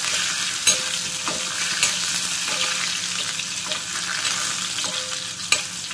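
Diced potatoes sizzling in hot oil with mustard seeds, cumin and green chillies in a steel kadhai, stirred with a steel spoon that clinks and scrapes against the pan a few times.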